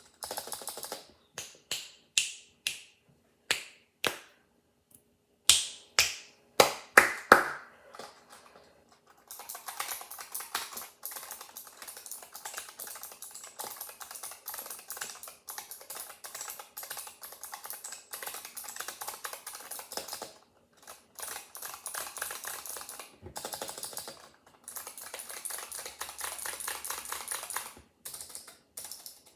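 Mechanical keyboard with optical switches being typed on. There are a dozen or so separate loud key presses over the first eight seconds or so, then fast, continuous typing with a couple of brief pauses.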